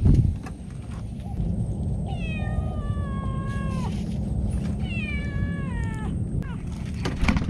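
A cat meowing twice, two long drawn-out meows that each slide down in pitch at the end, over a steady low rumble. A short knock at the start and another just before the end.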